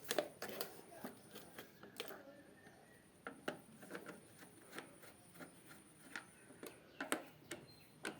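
Irregular light clicks and knocks of hand tools and the fan's metal and plastic parts being handled while a wall fan is taken apart, the sharpest just after the start and about seven seconds in.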